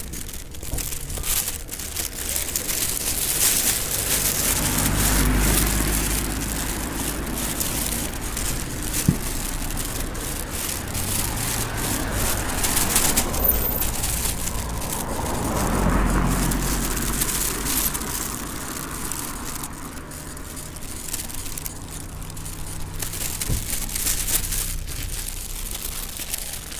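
Road traffic: car engines running and vehicles passing, with swells in the noise about five and sixteen seconds in.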